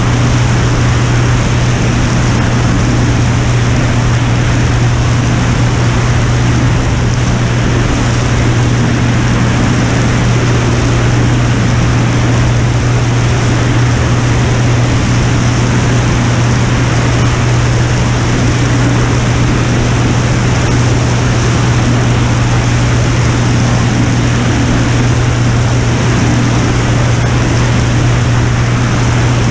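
Piper Turbo Saratoga's turbocharged six-cylinder engine and propeller running steadily in level cruise flight: a constant low hum over an even rush of airflow noise.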